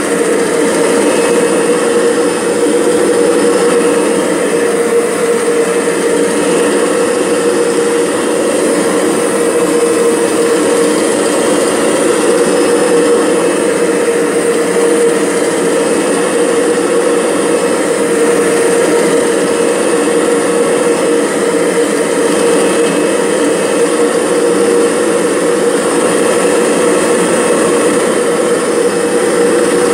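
Kirby G6 upright vacuum running steadily with its standard head in neutral and the brushroll belt disengaged, a constant motor-and-fan drone with a steady mid-pitched whine. This is the strange noise the owner is chasing, which persists even with the brushroll disengaged.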